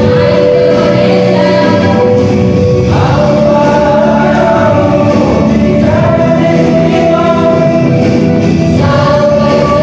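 Mixed school choir singing in harmony, holding long chords that change to new ones about every three seconds.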